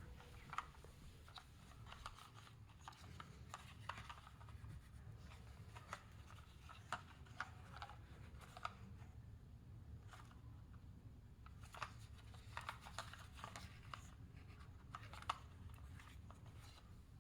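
Faint, scattered clicks, taps and light scraping of small toy cars being handled and set down, over a low steady background hum.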